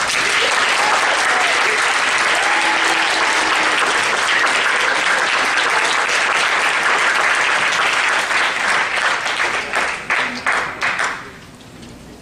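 Audience applauding, dense and steady, thinning to a few separate claps and dying away about eleven seconds in.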